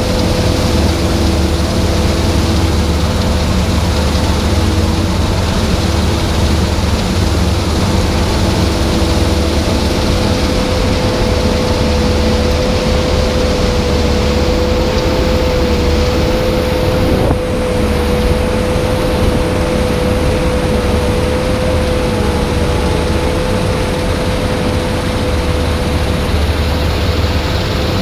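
Claas Lexion 650 combine harvester running steadily, a deep drone with a whine held on one pitch above it.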